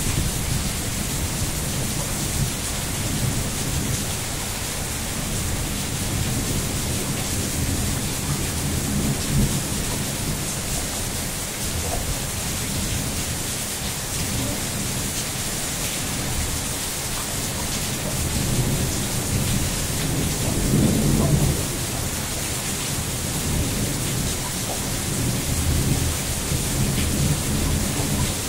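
Steady rain hissing during a thunderstorm, with low thunder rumbling in several swells; the loudest rumble comes a little past the middle.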